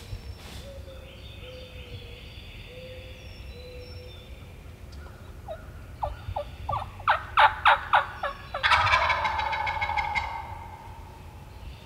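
Wild turkey gobbler gobbling at close range: one loud, rapid rattling gobble about two-thirds of the way in, lasting about a second and a half. Just before it comes a quickening run of loud, sharp calling notes.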